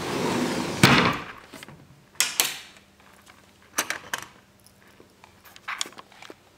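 Sliding glass patio door rolling along its track and knocking against its stop about a second in, followed by a few lighter knocks and clicks.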